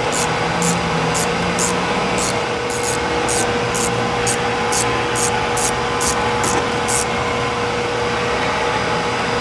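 Steady mechanical running noise with a constant tone, and a sharp high tick about twice a second that stops about seven seconds in.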